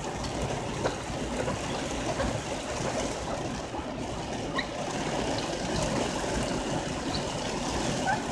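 Heavy storm rain falling steadily on and around a vehicle, a constant wash of noise with scattered drips and splashes.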